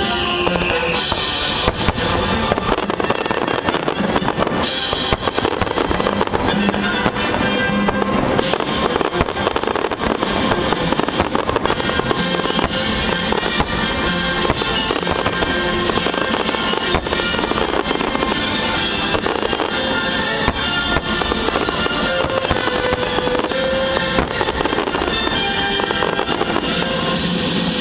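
Fireworks bursting and crackling thickly and without pause, with music playing along.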